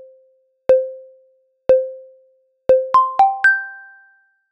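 Workout interval timer countdown: three short pinging tones a second apart, each ringing out, followed by a quick three-note chime of higher tones that marks the switch from rest to exercise.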